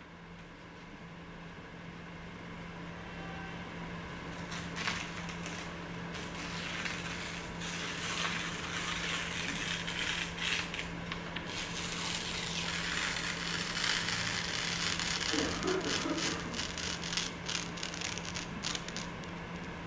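A sheet of paper being slowly torn apart by hand: a long, crackling rip with paper rustling. It starts a few seconds in and gets louder toward the end.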